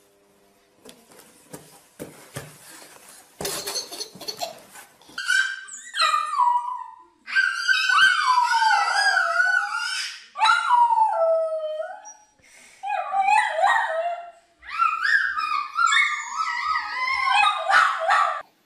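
Cardboard box flaps rustling and knocking for the first few seconds, then a small dachshund howling and yipping in a series of long, wavering, high-pitched cries that break off and start again about five times.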